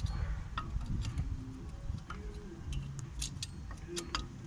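Scattered light metal clicks and clinks from a front brake pad's tabs being worked into the caliper bracket seats. The fit is tight; the owner blames the pads binding there for a squeak from the new front pads as the car moves off.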